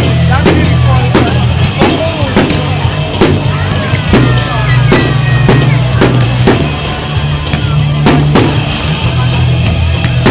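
Loud music with a heavy, steady bass line, and over it a run of sharp bangs from fireworks bursting, often about half a second apart but unevenly spaced.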